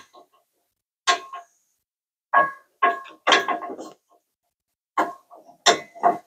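A series of sharp metallic clinks, each ringing briefly, in irregular groups: steel bed-mount bolt hardware and a hand tool knocking together as a truck-bed bolt is fitted into the frame mount by hand.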